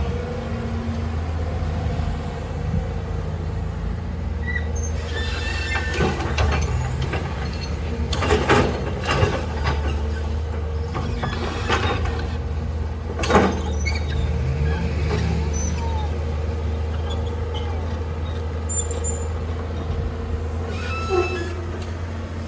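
Heavy machine's engine running steadily, with several sharp knocks and clanks, the loudest about halfway through.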